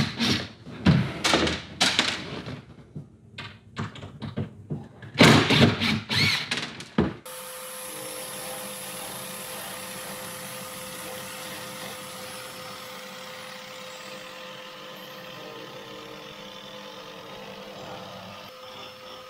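Cordless impact driver running in short loud bursts as it backs screws out, then, after a sudden change about seven seconds in, a steady hum of a small electric grinder with an abrasive wheel running against fibreglass.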